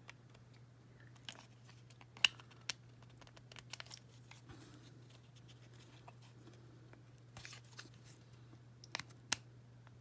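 Small plastic parts of a Zuru Mini Brands miniature bookshelf clicking and tapping as they are fitted together by hand: scattered sharp clicks, the loudest about two seconds in and near the end, over a steady low hum.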